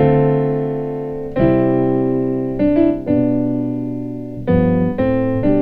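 Piano playing a gospel chord movement: full chords struck one after another, each held and left to ring and fade before the next. The movement passes through a dominant chord on the 6 (A7) resolving to the 2 (D minor).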